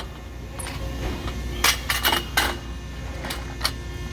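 A handful of sharp clicks and knocks from a phone being handled and moved, over a steady low hum.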